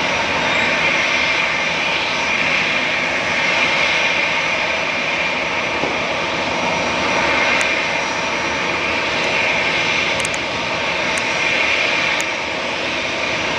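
Jet engine noise of a Boeing 747-8 freighter arriving to land: a loud, steady rush that swells and eases slowly.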